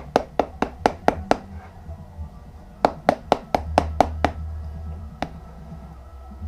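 Rapid, regular taps at about four a second, driving a rubber handlebar grip onto a motorcycle quick-throttle tube; two runs of taps, then a single tap.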